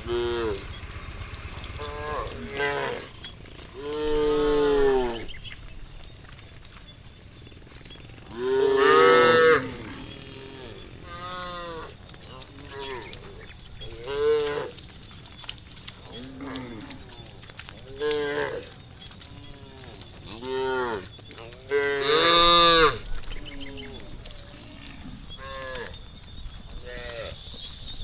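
A herd of cattle mooing, a dozen or more calls from different animals at different pitches, some short and some drawn out. The loudest calls come about four, nine and twenty-two seconds in.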